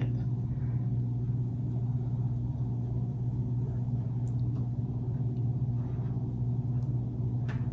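A steady low hum, with a few faint light clicks near the end.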